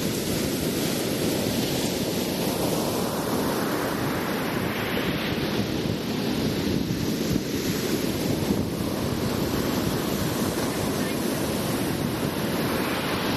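Heavy ocean surf breaking and washing up the beach in repeated swells, with wind buffeting the microphone.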